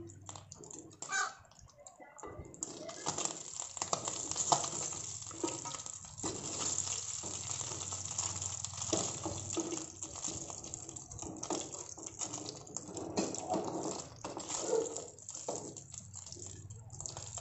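Small tangra catfish frying in hot oil in a kadai, sizzling steadily, while a wooden spatula scrapes and turns them with many small clicks against the pan. The sizzling grows louder about two and a half seconds in.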